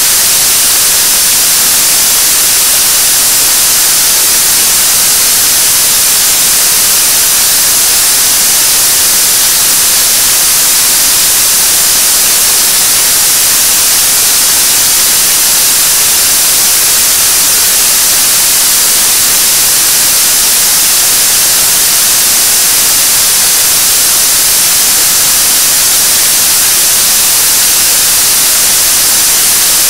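Nuri (KSLV-II) third-stage 7-tonne kerosene–liquid-oxygen rocket engine firing at steady thrust in a long-duration hot-fire test: a loud, unbroken, even hiss of exhaust noise, sharpest at the high end, that never changes.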